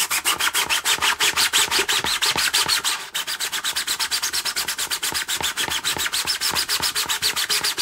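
Coarse sanding sponge rubbed by hand over a 3D-printed plastic model boat hull in quick, even back-and-forth strokes, several a second, scuffing down the print layer ridges.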